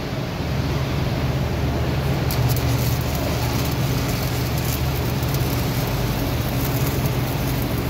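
Stick-welding arc crackling and hissing steadily as the electrode burns along a steel plate joint, over a steady low hum.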